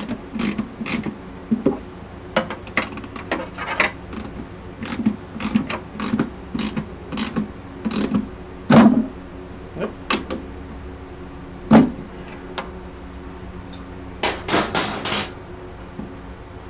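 Wrench working a saddlebag mounting nut and bolt tight, with repeated short metal clicks and knocks about two a second and a quick cluster near the end, over a steady low hum.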